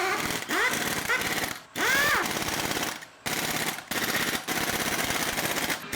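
Pneumatic impact wrench hammering in several bursts of a second or so, with short pauses between them.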